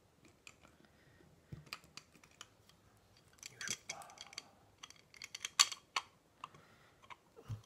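Light clicks and small knocks of a Comandante hand coffee grinder's metal parts and body being handled and fitted together during reassembly, irregularly spaced, the sharpest click about five and a half seconds in.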